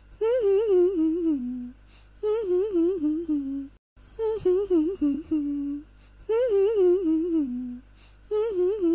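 A person humming a short tune in five phrases, each wavering and falling in pitch, with brief pauses between them.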